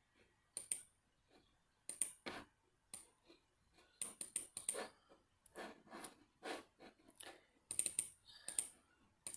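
Faint, irregular clicking of a computer mouse, single clicks and quick runs of clicks, as whiteboard tools are picked and part of a drawing is selected for erasing.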